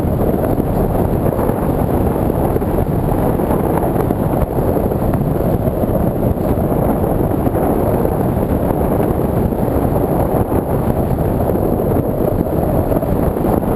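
Loud, steady wind rushing and buffeting over the microphone of a camera carried in flight.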